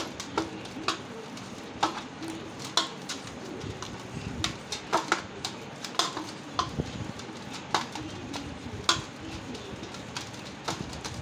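Soft dough greased with ghee being kneaded by hand in a steel bowl: irregular sticky slaps and clicks as the dough and fingers press against the steel.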